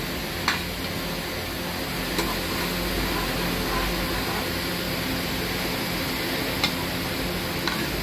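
Chopped onions sizzling in hot oil in a pan as they are added and stirred, with a metal ladle clinking sharply against the pan a few times.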